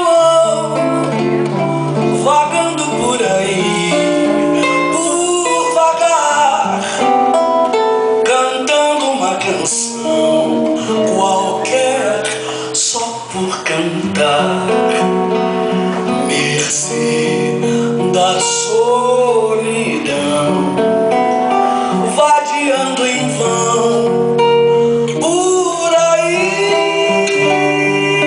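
Nylon-string acoustic guitar (violão) played live in a Brazilian style, with a voice singing along in places.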